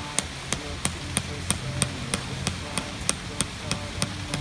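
Steady rhythm of sharp metallic taps, about three a second, over low sustained tones.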